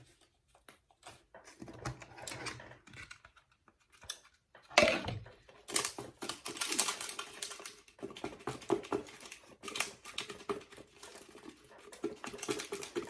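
Rapid clicking and rattling of fruit pieces and plastic containers being handled and shaken, sparse at first and turning into a fast, steady clatter about six seconds in.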